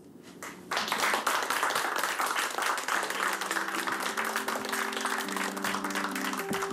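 An audience breaks into applause about a second in, many hands clapping steadily. From about three seconds in, music with held notes comes in beneath the clapping.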